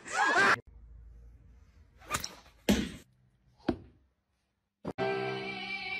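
Three sharp whacks, the second about half a second after the first and the third a second later, followed by music starting about five seconds in.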